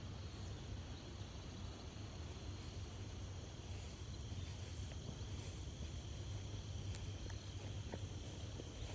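Crickets chirring steadily in several high continuous tones, over a low steady rumble.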